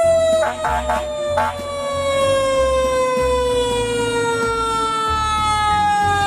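Fire engine siren on an aerial ladder truck, one long tone winding slowly down in pitch, starting to wind back up near the end.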